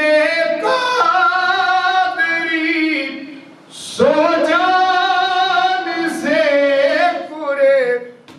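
A man singing a naat unaccompanied into a microphone in a high voice, with long held, ornamented notes and a short break about halfway through.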